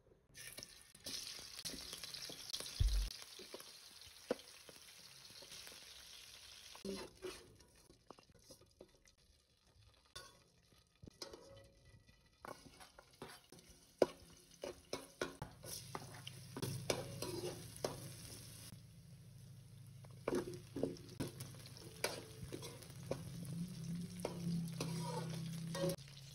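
Garlic and then chicken feet frying in oil in a metal wok, sizzling while a metal ladle stirs, scraping and clicking against the pan. A steady low hum joins about halfway through.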